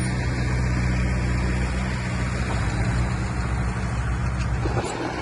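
Heavy diesel engine of construction machinery running steadily with a low hum, which drops away near the end.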